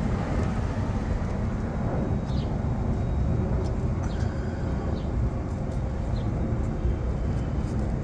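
Steady low rumbling background noise with a few faint, short high chirps.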